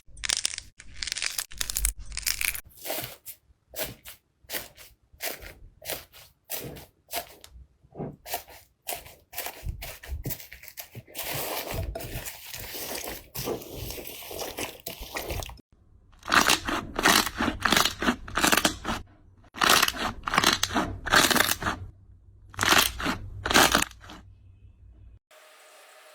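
Slime being pressed and squeezed, giving a rapid series of crunching, crackling pops, with one longer continuous crackle midway. The sound drops away just before the end.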